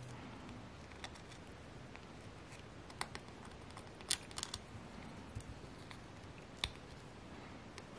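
Fingernails picking and scratching at the edge of an acrylic keychain blank to lift its protective backing: a few faint, light clicks and ticks scattered over several seconds, the sharpest one about two-thirds of the way through.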